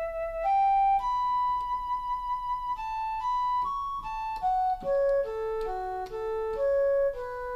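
Instrumental music: a single melody line of held notes, stepping more quickly in the middle, over a steady low bass.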